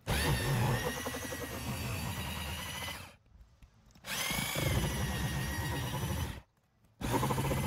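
Corded jigsaw cutting a 4-inch round hole through asphalt roof shingles: a motor whine over the rough rasp of the blade, in three stretches with short silent breaks between, the whine rising as the motor spins up at each start.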